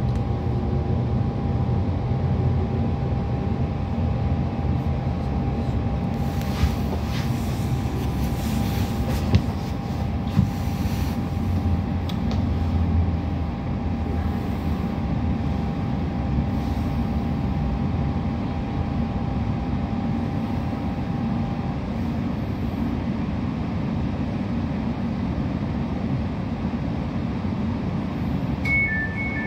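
Inside a passenger train braking into a station: a steady rumble of wheels and running gear, with a thin whine that dies away about three-quarters through as the train comes to a stand. Just before the end, a two-tone electronic beeping starts, the door-release warning.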